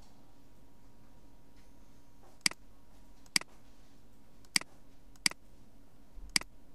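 Computer mouse button clicking five times, single sharp clicks roughly a second apart, ticking checkboxes in a list.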